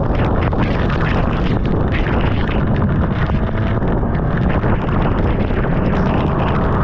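Sport bike riding at speed: a steady rush of wind over the camera microphone with the motorcycle's engine underneath, its note rising slightly in the second half.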